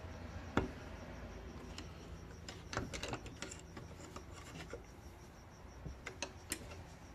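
Metal tool scraping and clicking against an ATV brake caliper as the pads are levered apart, with scattered sharp clicks over light rubbing.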